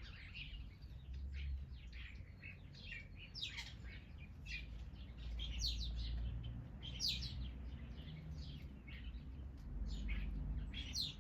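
A mixed chorus of small garden birds chirping and calling over one another in many short, quick notes, with a low rumble underneath.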